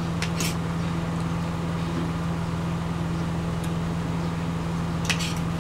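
Steady low hum of a running motor, with a few light clinks of a spoon and fork on a plate about half a second in and again near the end.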